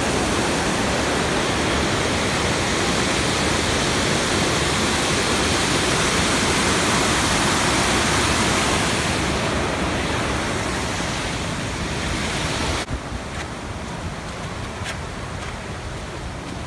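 Rushing water of a river waterfall, a loud steady noise; about 13 seconds in it drops suddenly to a quieter rush, with a few faint clicks after.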